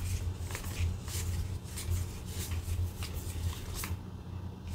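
Thin board-game cards leafed through and fanned in the hands: a run of light flicks and slides of card against card, over a low steady hum.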